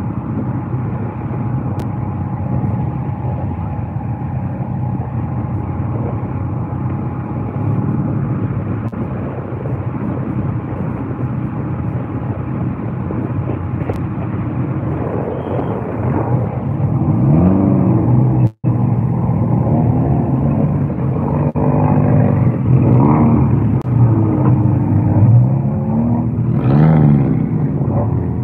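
Several stock car engines idling together in a steady drone; from about halfway in, engines rev up and down repeatedly as cars pull away.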